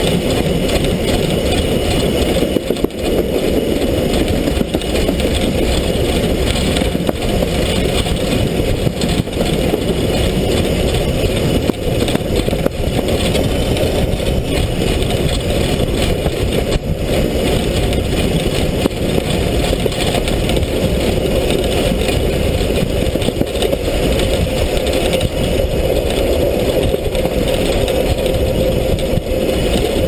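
Steam locomotive running along the track, heard close up from its side: a steady, loud, dense rumble of the engine's running gear and wheels on the rails.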